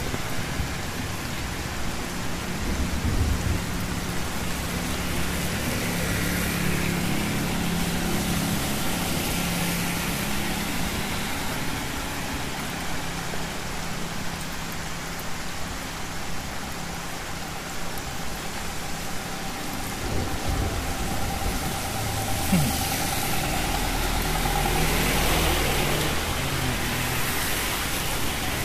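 Steady rain falling on a city street while motor vehicles pass, their engines running and tyres hissing on the wet road. One passes louder and closer near the end.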